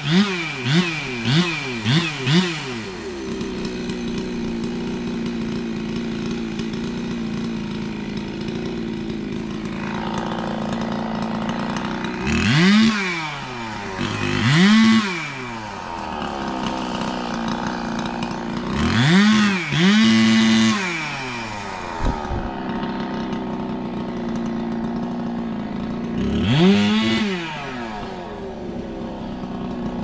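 Ported big-bore Husqvarna 372 XP two-stroke chainsaw idling, with four quick throttle blips near the start. Later it revs five times, briefly, up to full throttle and back down to idle.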